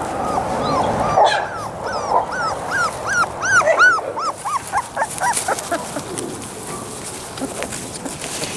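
Labrador retriever puppy whining, a quick run of short high cries that rise and fall, several a second, thinning out to a few fainter ones after about four seconds.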